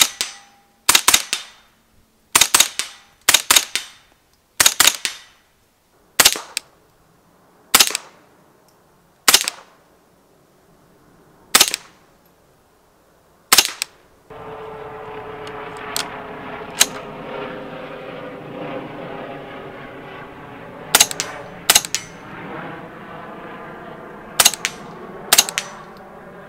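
Suppressed CZ Scorpion EVO 3 S1 semi-automatic .22 LR carbine firing subsonic rounds: about twenty sharp shots, mostly single and a second or two apart, some in quick pairs.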